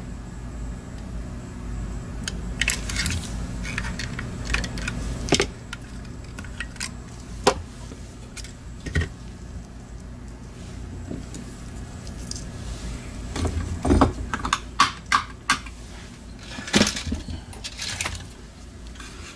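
Small plastic clicks, snaps and taps as a Logitech G Pro Wireless mouse's scroll-wheel assembly is pried apart and its parts are set down, coming in irregular clusters, over a faint low hum.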